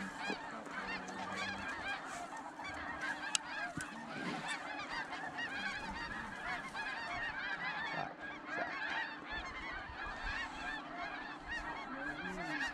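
A large flock of snow geese calling, many short high calls overlapping into one continuous din, with a single sharp click about three and a half seconds in.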